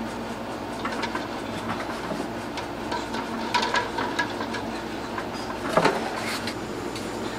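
Eggs clicking against one another and against a stainless steel pot as hands move them about in water, with small splashes over a steady background hum. The loudest knock comes about three-quarters of the way through.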